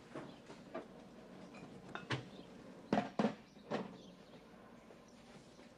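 Light, scattered knocks and clinks of kitchen work, such as crockery and cupboards being handled. The loudest are two sharp knocks close together about three seconds in, with another just after.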